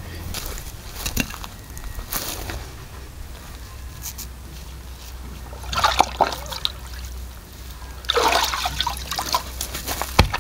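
Water sloshing and splashing in a plastic tub as a pig's head is handled in it, with bursts around six seconds in and again from about eight seconds, then water dripping off the lifted head. A single sharp knock near the end as the head is set down on a wooden chopping block.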